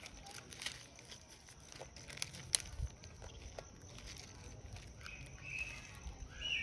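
Scattered light crackles of a plastic snack wrapper being handled and chewed by a macaque, with a few short high-pitched calls near the end.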